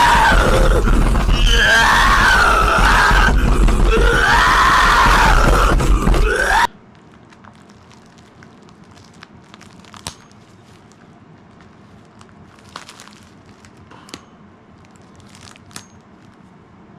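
A heavily distorted, clipping voice screaming, with gliding pitch and heavy bass, that cuts off suddenly about two thirds of the way in. After it, a quiet room with a few faint clicks and rustles, like packaging being handled.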